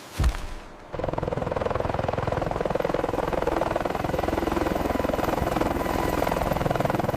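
A sudden thump, then a steady, fast-pulsing mechanical drone that sets in about a second later and keeps on.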